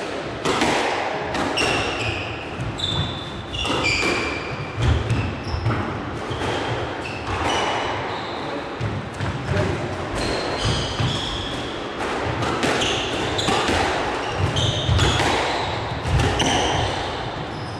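Squash rally: the ball struck again and again by rackets and smacking off the court walls, with short high squeaks of shoes on the court floor between the hits.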